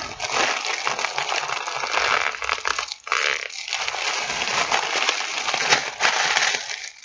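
Foil helium balloon crinkling and crackling as it is squeezed against the mouth to breathe in its helium, in two long pulls with a short break about three seconds in.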